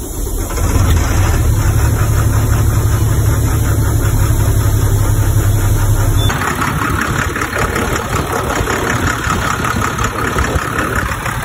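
International DT466 inline-six diesel engine running just after starting, with a newly fitted inlet air heater relay meant to cure a hard start. About six seconds in, the deep rumble drops away and a higher, rhythmic clatter comes to the front.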